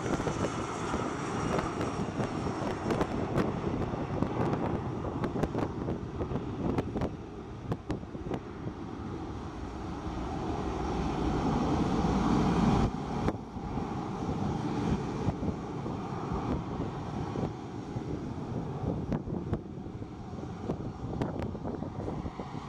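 Twin rear-mounted turbofans of an Embraer ERJ-145-family regional jet at takeoff thrust, a high whine over a broad jet noise. The noise builds to its loudest about halfway through, drops off sharply, then fades as a distant rumble with wind buffeting the microphone.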